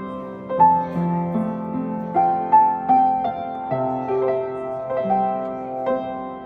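Solo piano playing a slow, gentle melody, single struck notes over sustained lower chords.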